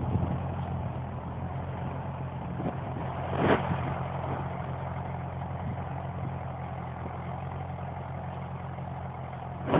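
Ferguson TEF-20 tractor's four-cylinder diesel engine running steadily as it pulls a nine-tine cultivator through the soil, with a brief louder rush about three and a half seconds in.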